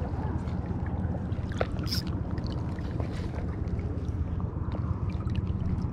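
Shallow water lapping and sloshing close by as an angler wades, over a steady low rumble of wind, with scattered small ticks and splashes.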